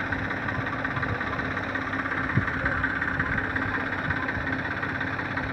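Tractor diesel engine idling steadily at an even, unchanging pitch. There is a brief low knock about halfway through.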